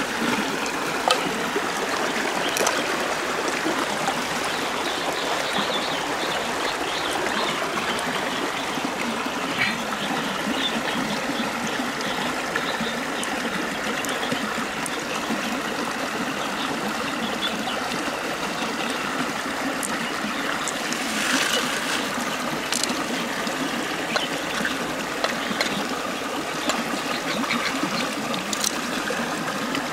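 Steady trickle of shallow running water, with a few faint clicks scattered through it and a brief louder rustle about two-thirds of the way through.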